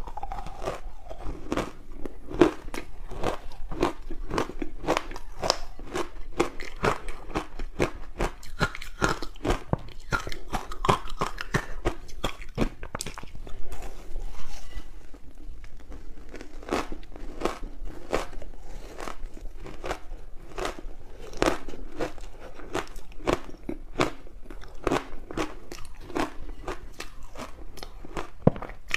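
Close-miked biting and chewing of soft frozen ice balls coated in green barley powder: dense, irregular crunching and crackling that goes on without a break.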